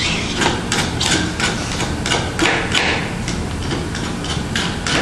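Irregular clicks, knocks and short hisses from handling work over a steady low hum.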